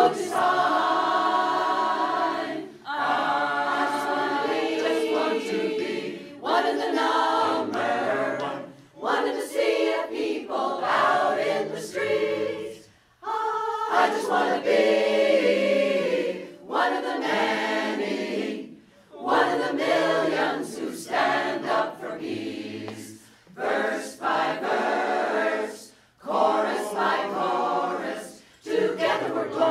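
A mixed choir of men's and women's voices singing unaccompanied, in phrases of a few seconds broken by short pauses for breath.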